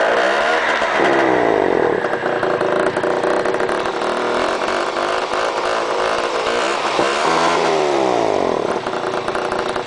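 Peugeot Speedfight 2 scooter's two-stroke engine running, with the revs falling and rising twice, about a second in and again around seven seconds. The owner calls these engine noises strange.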